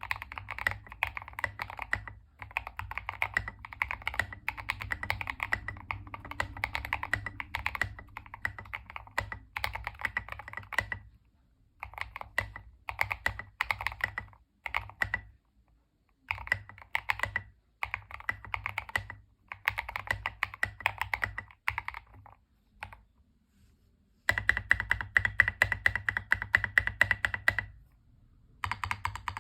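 Typing on a Tester68 mechanical keyboard fitted with Fantasy DVA switches lubed with a Krytox 205/105 mix. Dense runs of keystrokes are broken by a few short pauses.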